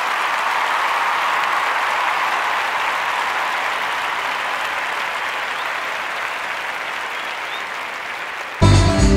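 Audience applause, steady and slowly fading. Near the end it cuts abruptly to a live band playing, with guitar.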